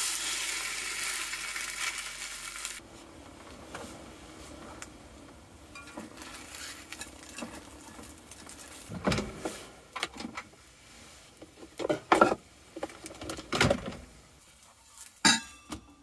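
French toast sizzling as it fries in butter in a stainless steel pan for the first few seconds, cutting off abruptly. Then quieter, with a handful of sharp clinks and knocks of kitchenware.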